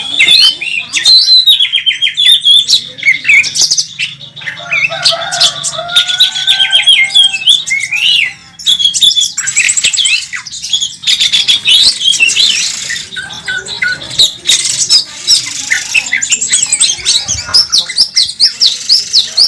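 Oriental magpie-robin (kacer) singing loudly and almost without pause: a fast, varied song of whistles, trills and sliding notes, with a brief break about eight seconds in. This is its aggressive 'fighting' song, studded with mimicked calls of other birds.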